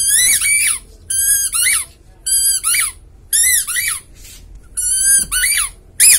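A puppy whining: about six high, thin whines, roughly one a second, each sliding up and down in pitch.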